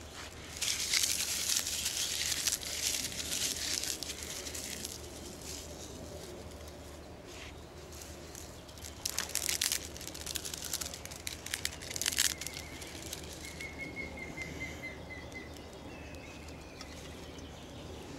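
Dry straw and thin twigs rustling and crunching as they are pushed by hand into a small hobo stove with a grass fire burning in it, in irregular bursts that are densest in the first few seconds, with a few sharp snaps later.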